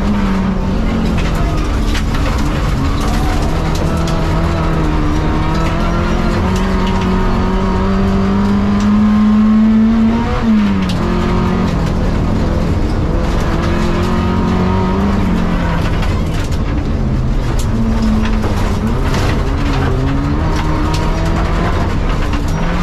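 Renault 18 rally car's four-cylinder engine, heard from inside the cabin, running hard on a dirt stage. Its pitch climbs steadily for several seconds to a peak about halfway through, then drops sharply and rises and falls again through the gears. Scattered clicks and knocks from the rough road sound over it.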